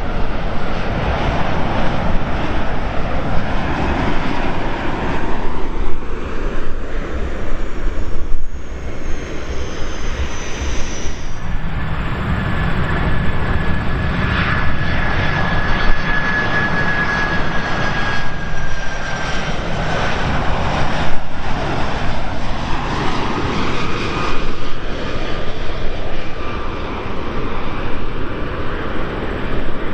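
Jet airliners on final approach, flying low overhead with engines running: first a Boeing 787-9 Dreamliner, then, after a break about eleven seconds in, a four-engined Boeing 747-400. The 747-400 passes with a steady whine that falls slowly in pitch as it goes by.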